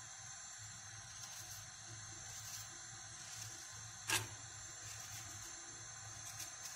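Onion being sliced by hand with a knife over a frying pan, pieces dropping into the pan: a few soft crisp cuts and one sharp click about four seconds in, over a faint steady hiss.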